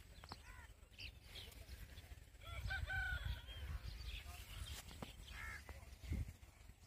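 A rooster crows about midway, and shorter arched bird calls come before and after it, over a low rumble.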